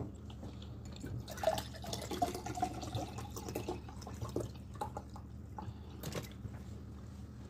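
Soft, close-up wet clicks and squelches from fingers working stew-soaked white rice on a plate, busiest in the first half and then thinning out to scattered clicks.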